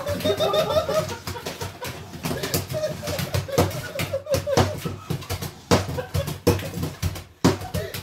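People laughing hysterically, with a run of rapid laughing pulses in the first second. Sharp knocks and clattering impacts are scattered throughout.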